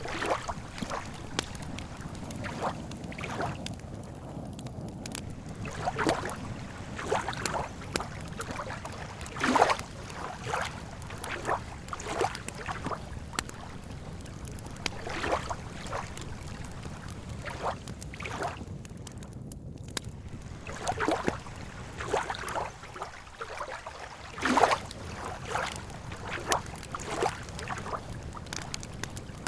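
Campfire crackling with irregular pops, over small waves lapping at the lake shore.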